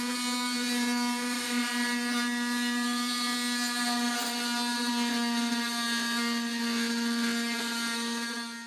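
Einhell 10.8-volt cordless Multimax oscillating multi-tool running with its grout blade, raking old grout out from between tiles: a steady buzz at one pitch with a rasping edge, cutting off suddenly at the end.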